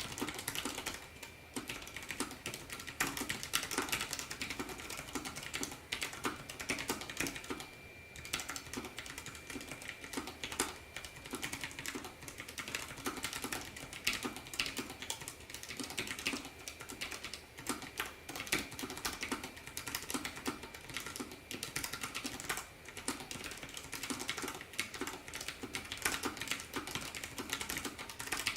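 Fast continuous typing on a Perixx PERIBOARD 428 low-profile mini mechanical keyboard with brown-type switches: a dense, irregular patter of key clicks with brief pauses, fairly quiet for a mechanical keyboard.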